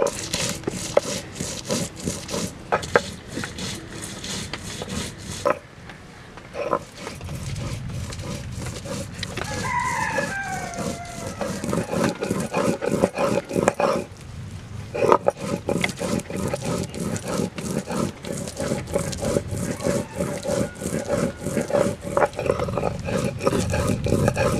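Stone roller rubbed back and forth on a stone grinding slab, grinding spices into a wet paste: a rhythmic grating scrape, stroke after stroke, with a short pause about six seconds in and another about fourteen seconds in. A rooster crows in the background about ten seconds in.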